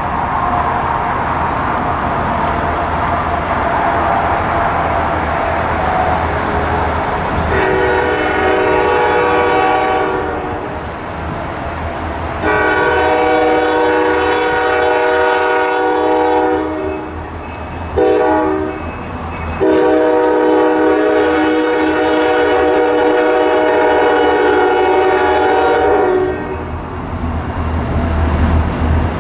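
Nathan K5LA air horn on an approaching EMD SD40T-2 locomotive sounding the grade-crossing signal: long, long, short, long, the last blast about six seconds. Under it runs the steady low rumble of the oncoming diesel freight train.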